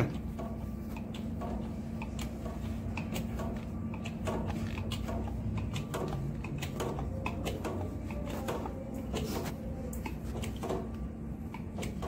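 Hand-pumped hydraulic crimping tool being worked to crimp a lug onto a heavy cable: irregular light clicks and knocks from the handles and ram, over a steady low hum.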